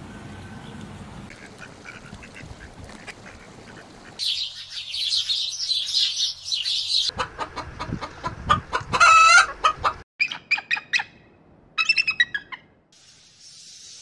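Chickens clucking as a flock feeds, with one loud, drawn-out squawk among the clucks. Before it comes a dense high-pitched chirring, and after it a few short bursts of rapid high-pitched calls.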